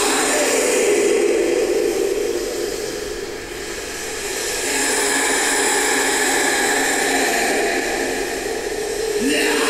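Droning, hiss-like noise opening a doom/death metal track, with no beat, dipping briefly about three seconds in. Near the end the sound changes as the heavy metal music begins.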